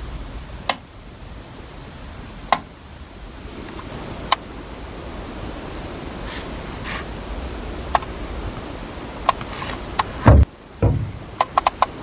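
Short single clicks every second or two over a steady hiss, a louder bump a little after ten seconds, then four quick clicks close together near the end: handling of a handheld pump with built-in lights and presses of its buttons.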